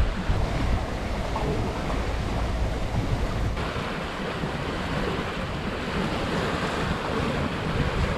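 Water rushing and splashing along a sailboat's hull as it sails upwind at almost 6 knots, with wind buffeting the microphone; a steady rush with no engine.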